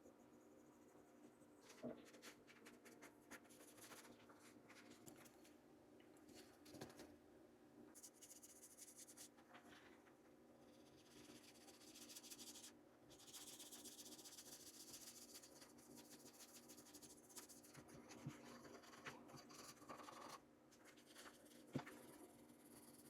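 Faint scratchy rubbing of #0000 steel wool scrubbed over an oiled steel pistol slide, taking off surface rust, in uneven strokes with a few small clicks.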